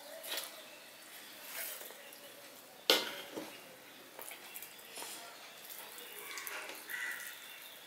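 Hand eating from a steel plate: fingers mixing rice against the metal with light scattered clicks, and one sharp knock, the loudest sound, about three seconds in as a steel serving bowl meets the plate.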